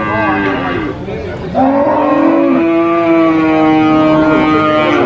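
Cattle mooing: shorter calls first, then about one and a half seconds in a cow lets out one long, drawn-out moo that holds a steady pitch for over three seconds.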